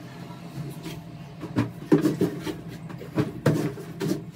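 Laundry being handled in a lidded plastic laundry hamper: clothes rustling, with several short knocks and clatters against the bin and its lid, over a steady low hum.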